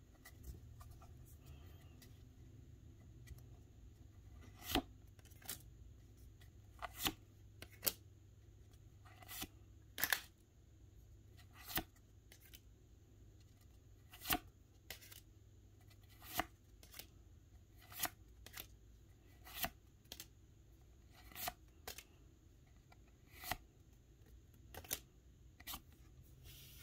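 Pokémon trading cards being flipped through one at a time. Each card slid off the stack makes a short, sharp flick or snap, at an uneven pace of roughly one every one to two seconds.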